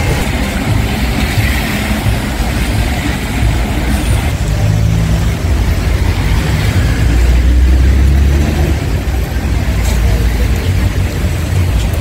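City street traffic on wet roads: engines running and tyres passing, with a low rumble that swells louder about seven to nine seconds in.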